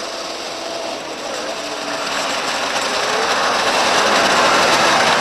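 Racing snowmobiles running, a rushing engine noise that swells to its loudest about four to five seconds in, then starts to fade.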